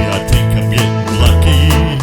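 Background music: a guitar-led song with a heavy bass and a steady beat.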